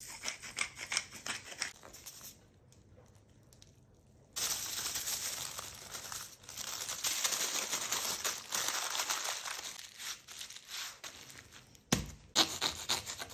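A pepper grinder clicking for about two seconds, then parchment paper and aluminium foil crinkling as they are folded tightly around a sandwich. A single dull thump about twelve seconds in, followed by more crinkling.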